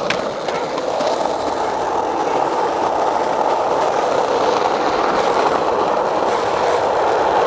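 A skateboard's wheels rolling steadily over rough pavement, a continuous rumbling hiss, after a sharp clack right at the start.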